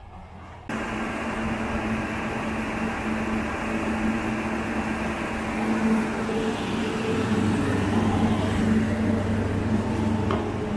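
Large cooling blower of a chassis dyno running: a steady rushing noise with a constant low hum, starting abruptly under a second in.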